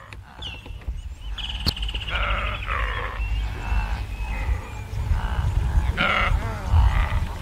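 Animal calls: a run of short bleat-like cries, one with a fast quaver about a second and a half in, over a steady low rumble, fading in at the start.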